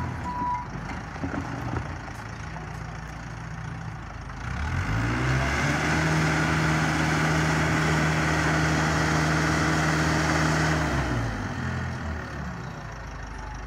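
Engine of a heavy vehicle or site machine revving up, held at high revs for about five seconds, then dropping back to idle.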